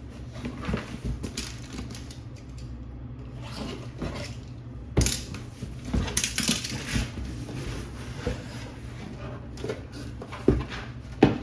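A cardboard shipping box and its packaging being handled and opened by hand: scattered knocks and clicks with bursts of rustling and crinkling, the sharpest knocks about halfway through and near the end.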